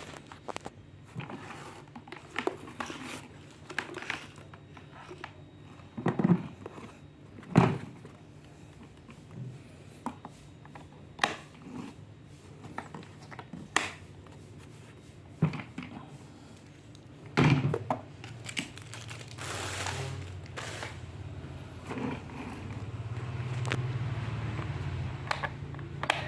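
Plastic packaging crinkling, with scattered knocks and thunks as vacuum cleaner parts and packing are handled. A low hum rises over the last several seconds.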